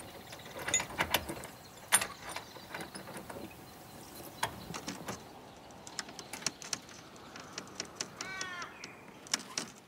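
Rusty steel chain clinking and rattling against a metal gate and a wooden post as it is unhooked and looped by hand, a string of sharp metallic clicks with the loudest about two seconds in. A brief chirping trill near the end.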